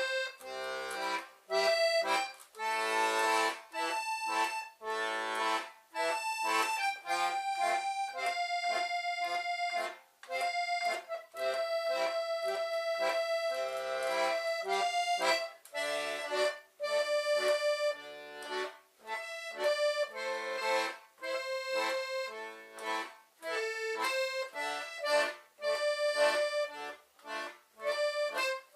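Concertina playing a melody over chords, the notes mostly short and separated, with a few longer held notes in the middle.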